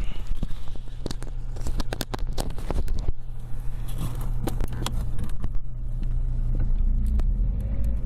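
Lada Priora driving over small bumps: a steady low road rumble with repeated sharp, irregular knocks from the front end, which the owner traces to a knocking steering rack, most likely a worn rack bushing short of grease.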